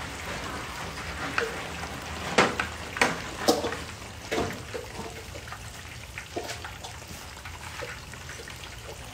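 Whole fish deep-frying in hot oil in a wok: a steady sizzle with sharp pops of spattering oil, several close together a couple of seconds in and a few more later.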